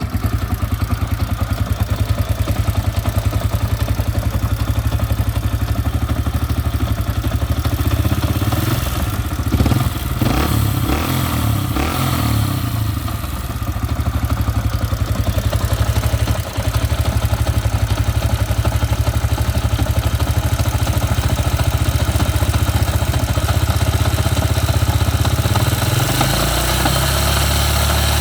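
Yamaha XTZ 125 single-cylinder motorcycle engine running at idle, with a brief unsteady patch in the middle; the owner records it for an abnormal engine noise.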